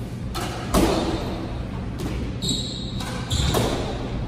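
Squash ball hits echoing around the court: a few sharp smacks, the loudest about a second in and another near the end. Rubber-soled shoes squeak briefly on the hardwood floor in between.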